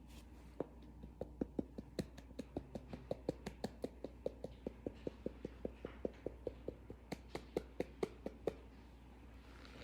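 Cornstarch squeaking as it is chewed: a quick, even run of short squeaky crunches, about four or five a second. It starts just under a second in and stops near the end.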